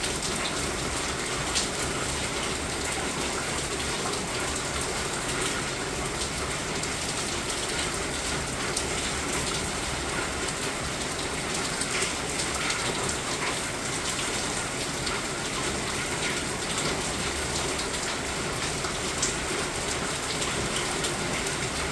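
Steady rain falling, a constant hiss with scattered individual drop ticks.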